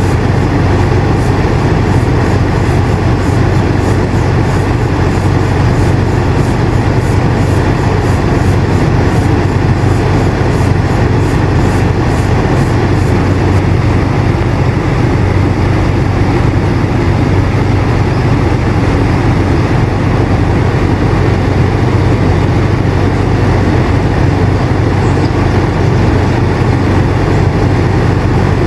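Air conditioner running steadily: a continuous rushing of air over a low motor hum, with no change in level.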